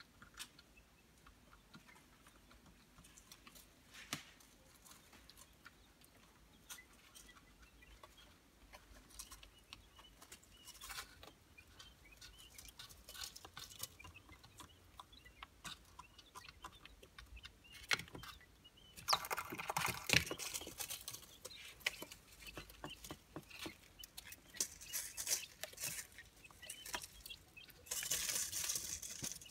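Three-day-old quail chicks peeping and scratching about in shredded-paper bedding, with many small pecks and scuffs. Louder bursts of paper rustling come about two-thirds of the way through and again near the end.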